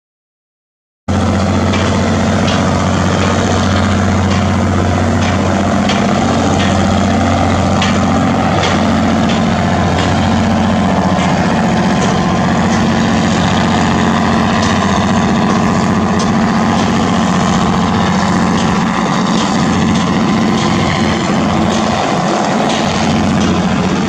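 Diesel engine of a passenger river launch running steadily under way, a loud continuous drone with a deep low hum, starting about a second in.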